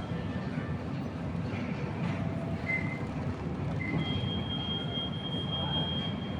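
Steady low rumble of a moving vehicle, with a thin high whine that drops out near the start and comes back about four seconds in, and two brief squeaks in between.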